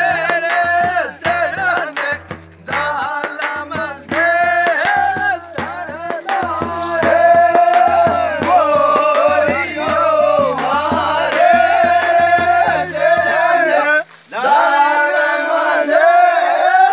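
Desi phagan folk song: a man singing over drums and a repeating low bass pattern. About fourteen seconds in the music breaks off and a group of men's voices carries on.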